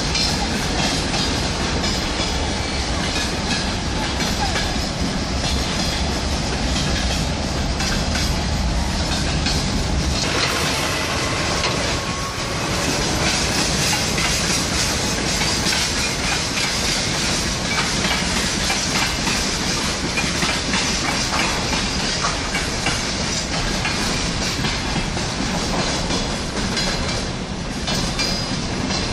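Passenger train running on the rails, a steady rumble of wheels and coaches. About ten seconds in the deep rumble thins out and higher-pitched noise grows.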